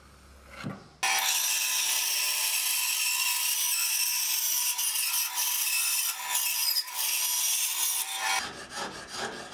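Benchtop bandsaw cutting a wooden board along a curved line, a steady running whine with the hiss of the blade in the wood, starting abruptly about a second in. Near the end it gives way to a quick run of short scraping strokes from a spokeshave shaving the cut edge.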